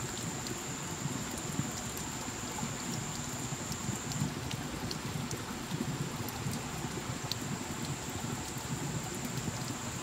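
Water drops falling steadily onto wet leaves and rock: a dense, even patter with scattered single drips. A thin, steady high whine runs alongside it and grows fainter about four seconds in.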